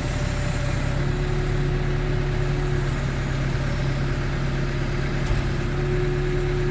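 2007 New Holland B95LR backhoe loader's diesel engine idling steadily.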